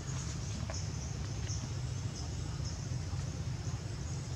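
Outdoor ambience: a steady low rumble, with short high chirps repeating over and over above it.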